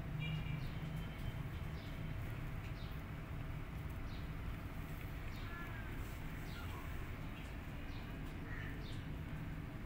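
Faint, scattered short high chirps of small birds in the background over a steady low rumble.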